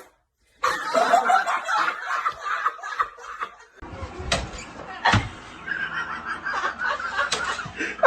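People laughing, with two sharp knocks about halfway through.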